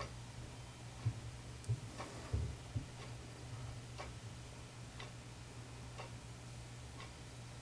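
A clock ticking steadily, about one tick a second, over a low steady hum. A few dull low thumps come between about one and three seconds in.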